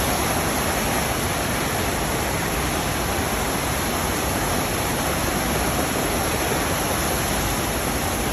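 Steady rush of water from a FlowRider surf simulator, a sheet of pumped water streaming over the riding surface.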